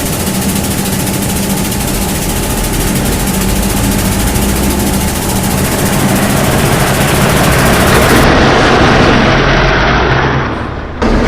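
Loud, steady heavy engine noise with a low hum, swelling about two-thirds of the way through and cutting off abruptly near the end.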